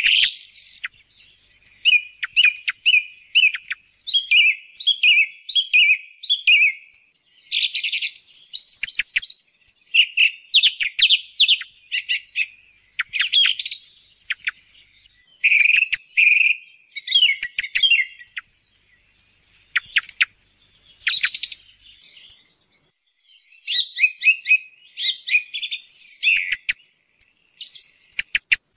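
Song thrush singing: a run of short, varied phrases of clear whistles and sharp chirps, several repeated in quick succession, separated by brief pauses.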